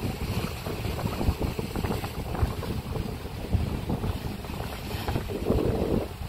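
Wind buffeting the microphone, with sea waves washing against the rocks underneath; a stronger gust or wave swells up near the end.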